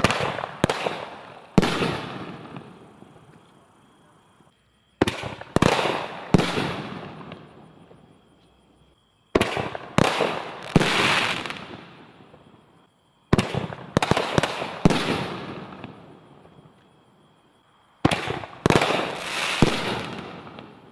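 Five 7-inch multi-break canister shells go off one after another, roughly every four to five seconds. Each gives a quick run of three or four sharp bangs as it fires and its breaks burst, followed by a fading crackling hiss.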